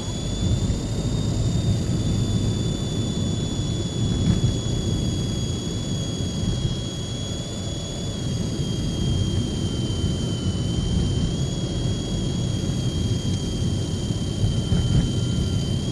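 A steady, high-pitched whistle from the car's front passenger-side air-conditioning vent, wavering slightly in pitch, over the low rumble of the car on the road. The owner likens it to a boiling kettle. It is an intermittent fault that grows sharper with throttle and stronger vibration, and goes away after the engine is restarted.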